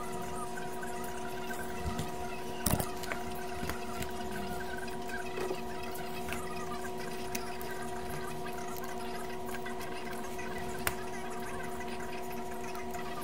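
A steady hum holding several fixed pitches, with a few light clicks and one sharper knock about three seconds in from the mixer's circuit board and chassis being handled.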